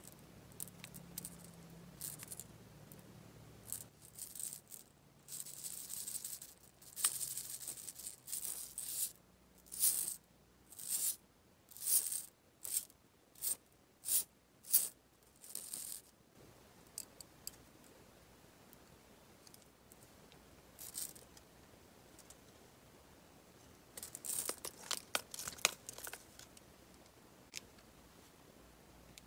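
Small chocolate balls rattling inside clear plastic pen-shaped candy tubes as the tubes are shaken, first in a longer stretch, then in a run of about ten short separate shakes. Another brief burst of rattling comes near the end.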